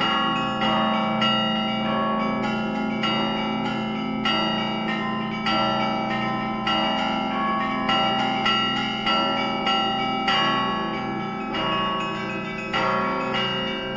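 Russian Orthodox church bells rung by hand in a zvon: smaller bells struck in a quick, repeating rhythm, roughly two strikes a second, over the steady hum of the larger bells ringing on.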